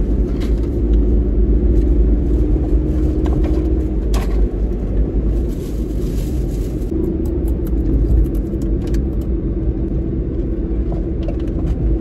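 Car interior noise while driving: a steady low rumble of engine and road, with a few light clicks.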